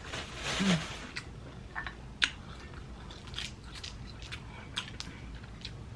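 Close-miked mouth sounds of a person eating: chewing and wet lip-smacking, with short clicks scattered irregularly throughout. A brief breathy sound comes about half a second in.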